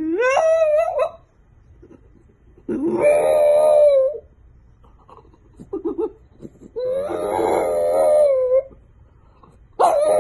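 French bulldog howling: four long, wavering howls with pauses between them, the first sliding up in pitch as it begins.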